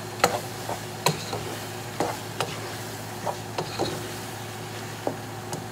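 Ground beef frying in a pot as it is stirred with a spoon, the spoon giving about eight sharp clicks and knocks against the pot at uneven intervals.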